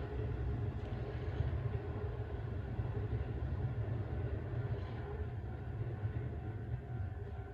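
Electric commuter train running on the line by a level crossing: a steady low rumble with a few faint steady tones above it.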